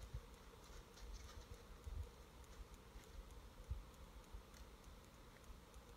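Near silence: faint outdoor ambience with a low rumble, a few soft low thumps and scattered small ticks.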